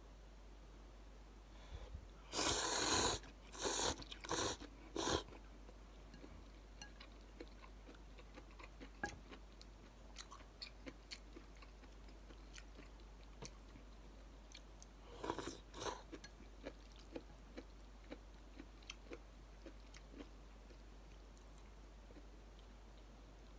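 A person slurping noodles in a run of four loud, noisy bursts a couple of seconds in and again briefly around the middle. Soft wet chewing clicks fill the rest.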